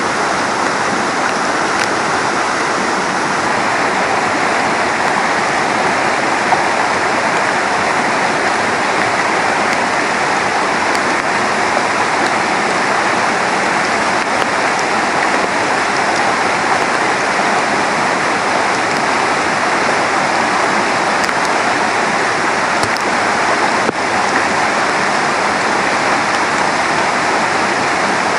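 Mountain river swollen by heavy rain, its high water rushing in a loud, steady, unbroken noise.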